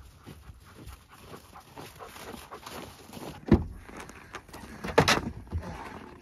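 A dog panting over faint footsteps, then two sharp clunks about a second and a half apart, the second as the Ford Bronco's rear swing gate is unlatched and swung open.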